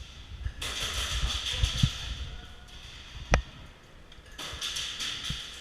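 Airsoft guns firing: rapid ticking bursts of shots in two stretches, with a single sharp crack about three and a half seconds in.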